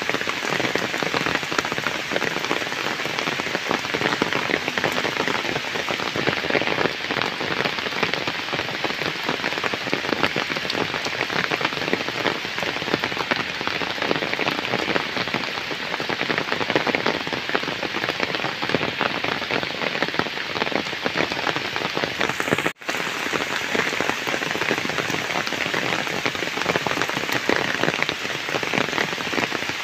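Heavy rain falling steadily on flooded ground and standing puddles, a dense even hiss with one split-second break about three-quarters of the way through.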